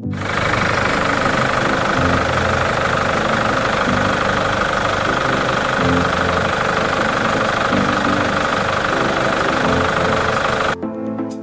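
Kia D4CB 2.5-litre four-cylinder common-rail diesel engine idling steadily with a clattering knock, running again now that a new fuel rail pressure sensor has cured its crank-no-start fault. Background music plays under it.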